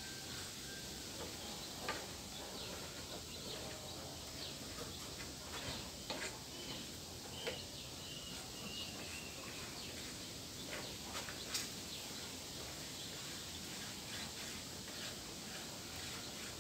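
Faint bird chirps over a quiet, steady background, with a few light knocks and taps of hands and a marking tool on wooden planks.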